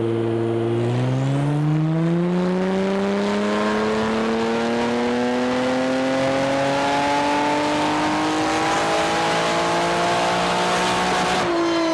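Twin-turbo 3.3 V6 revving up steadily and at length, as in a dyno pull, its pitch climbing for about ten seconds. Near the end the revs fall away suddenly.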